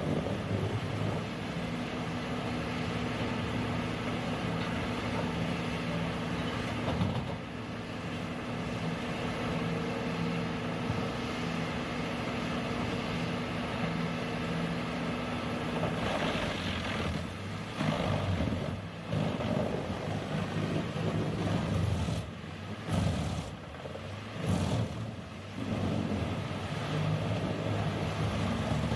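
Heavy engine-driven wood-processing machine running with a steady engine tone, then labouring unevenly from about halfway, with surges and sudden drops in the noise.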